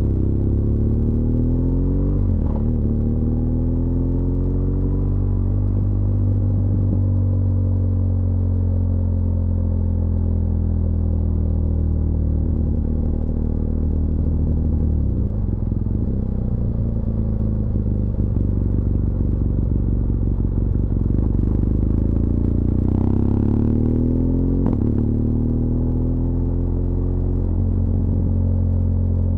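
BMW R1200GS LC Adventure's liquid-cooled boxer-twin engine running under way, its revs falling and rising again and again. Two sharp clicks, one early and one late.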